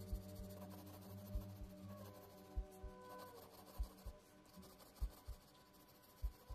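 Faint scratching of a mechanical pencil's graphite shading strokes on sketchbook paper, under soft background music with sustained tones and a low double beat that comes about every second and a quarter.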